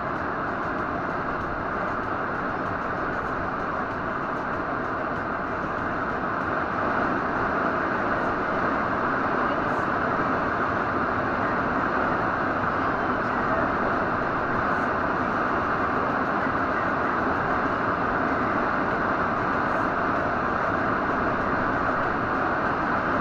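Steady wind and road noise inside a moving car's cabin while driving through a blizzard, growing a little louder about seven seconds in.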